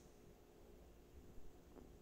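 Near silence: faint room tone, with a soft brief tick about a second and a half in.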